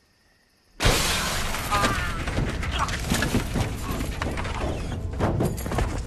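A sudden loud crash with glass shattering, about a second in, then a sustained rushing noise full of scattered knocks and clatters.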